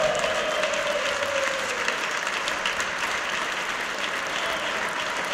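A large group of people applauding, steady clapping.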